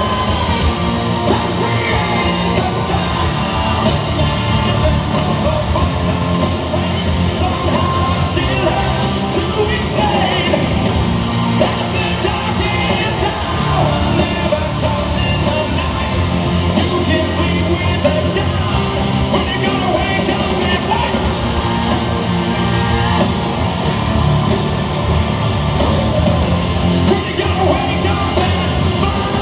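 Live hard rock band playing loudly and steadily, with drums, guitars and a singing voice over them.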